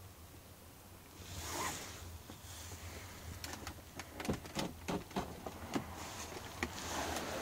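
Light clicks and knocks of a hand working a Volkswagen Golf's interior door handle and trim, then, near the end, the driver's door opening and letting in a rise of outside wind noise.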